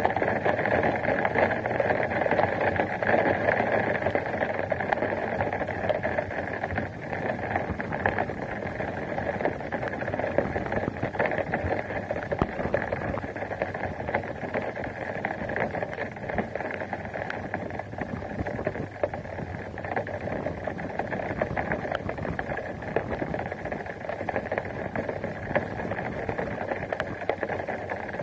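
Steady rain and wind noise on a camera mounted outside a vehicle: a dense, even patter of drops, a little louder in the first several seconds.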